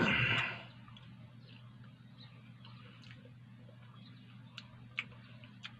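A bite into a homemade shawarma in lavash, a short noisy burst at the start, then chewing with scattered soft mouth clicks over a steady low hum.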